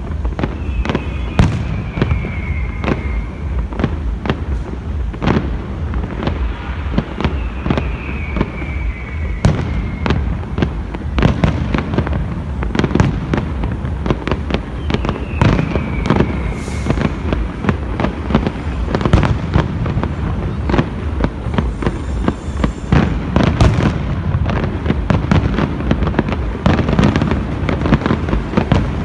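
Aerial fireworks display: a rapid, continuous series of bangs and crackling bursts over a steady low rumble. A high whistle falling in pitch sounds three times in the first half.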